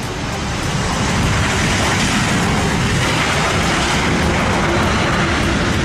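Twin-engine jet airliner landing and rolling out on the runway, its engines giving a loud, steady rush of noise that swells about a second in.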